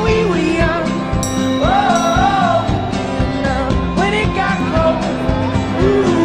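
Background music: a song with a singer holding wavering notes over a full band backing.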